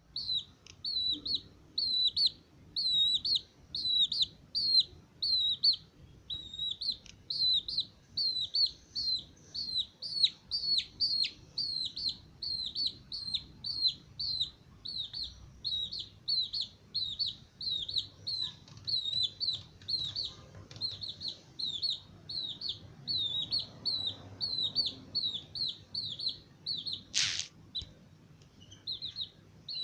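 Young Aseel chicks, about three weeks old, peeping steadily in short high chirps, roughly two a second. One sharp, louder sound stands out about three seconds before the end.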